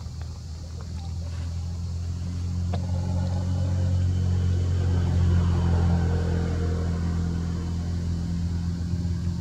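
A steady low engine rumble that swells to its loudest around the middle and then eases a little, like a motor vehicle running close by.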